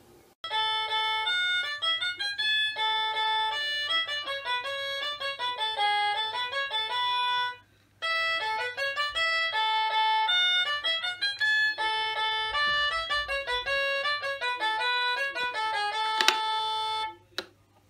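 Instrumental music: a quick melody of clear, stepping notes that breaks off briefly a little before halfway, then resumes and stops near the end.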